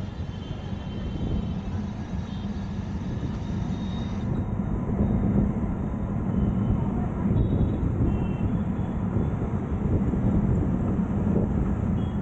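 Road noise of a vehicle riding through city traffic: a steady low rumble that grows slightly louder, with a few faint high tones.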